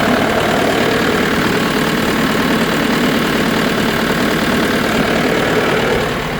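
Tractor diesel engine running steadily at raised RPM while the air conditioner's refrigerant is being charged. Its level drops slightly near the end.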